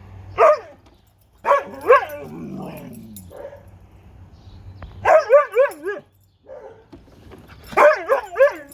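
A dog giving weak, wimpy barks and wavering yowls in four short bouts, alarmed by a lawn mower it takes for a threat.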